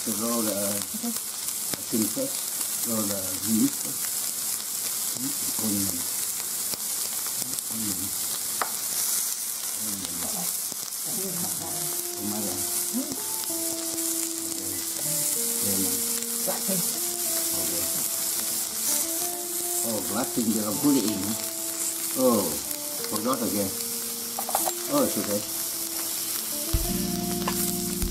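Shrimp and onion rings sizzling on an electric indoor grill plate, a steady hiss. Soft background music with held, stepping notes comes in about twelve seconds in.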